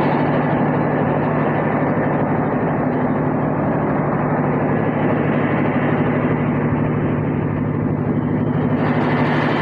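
Engine-driven mobile rice mill running steadily as it mills paddy into rice: a constant engine hum under an even rushing noise, which turns brighter and hissier near the end.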